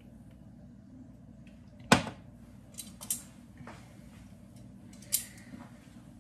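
Metal kitchen tongs clacking and knocking against a pot as meat and bacon are moved into it: a handful of sharp clicks, the loudest about two seconds in, over a faint low hum.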